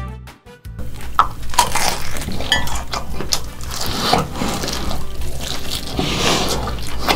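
Close-up crunching and chewing of a crispy breaded fried chicken drumstick: crackling bites through the crust and wet chewing sounds, starting about a second in.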